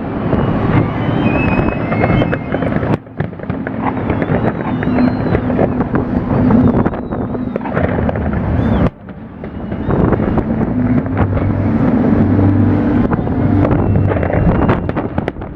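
Fireworks display: a dense run of bangs and crackles, with thin whistles gliding up and down in the first half and wind buffeting the microphone. The sound drops out abruptly for a moment about three seconds in and again near nine seconds.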